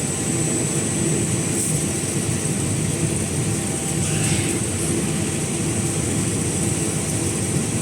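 Snack pellet frying line machinery running with a steady drone and a faint, constant high whine.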